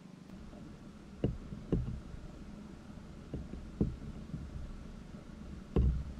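Handling noise on the recording gear: five dull, low knocks, in two pairs and then a louder one near the end, over a steady low hum.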